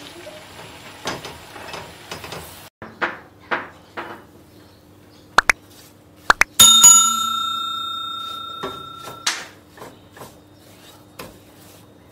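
Wooden spoon scraping and stirring a crumbly mixture in a stainless steel pot. Over it, about five seconds in, a subscribe-button sound effect plays: a few sharp clicks, then a loud bell ding that rings for about three seconds and cuts off abruptly.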